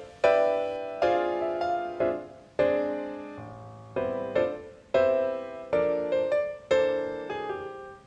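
Background piano music: chords struck about once a second, each ringing out and fading before the next.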